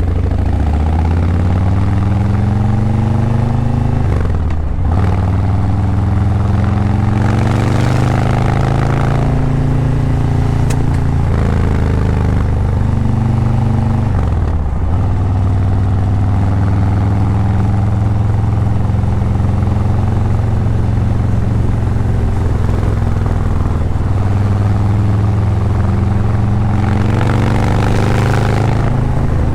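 Harley-Davidson Breakout 117's Milwaukee-Eight 117 V-twin running through a Vance & Hines Eliminator 300 slip-on exhaust while riding. The pitch climbs under throttle and dips briefly at gear changes about four and a half and fifteen seconds in, then holds steady at cruising speed.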